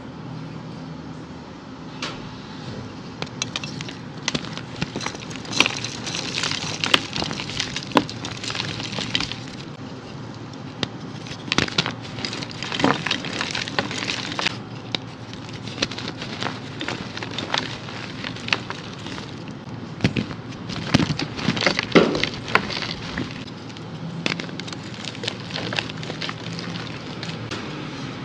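Red-dyed reformed gym chalk blocks crushed and crumbled by hand: irregular dry crunching and crackling, with sharper snaps now and then as pieces break apart.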